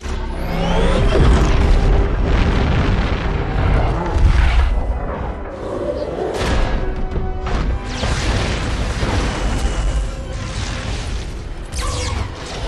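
Action-film soundtrack: dramatic score over a dense layer of booms, impacts and whooshes with a heavy low rumble, starting abruptly after a brief silence.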